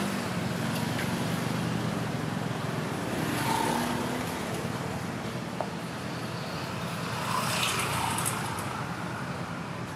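Road traffic noise: a steady wash of passing cars, with a few faint clicks.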